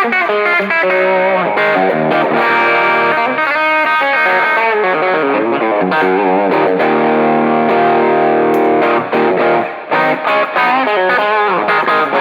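Westcreek Helios electric guitar played through light overdrive and delay: lead lines with string bends and vibrato, then a chord held for about two seconds past the middle before more single-note playing.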